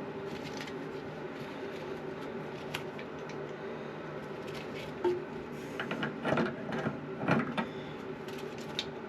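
Scattered clicks and knocks of plastic toilet plumbing fittings being handled, bunched between about five and seven and a half seconds in, over a steady low hum.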